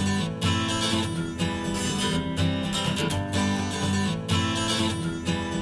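Acoustic guitar strummed in a steady rhythm: the instrumental opening of an acoustic pop song, before the vocal comes in.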